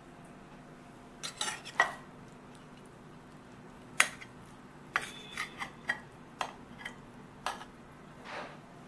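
A serving spoon clinking and scraping against a glass casserole dish and a ceramic plate as rice pulao is dished out: a series of irregular clinks and short scrapes, the sharpest about four seconds in.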